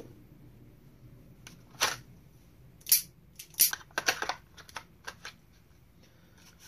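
Revolver in a kydex holster being pushed and wiggled: a string of sharp plastic clicks and knocks from about two seconds in until past the five-second mark, as the holster's retention is tested.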